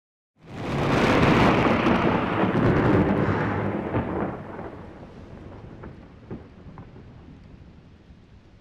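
A loud thunderclap breaks in suddenly about half a second in and rolls on as a rumble for about four seconds, then fades slowly under the sound of rain.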